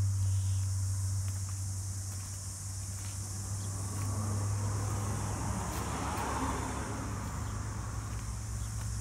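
Outdoor ambience: a steady low hum from a distant vehicle engine, with a steady high insect buzz above it.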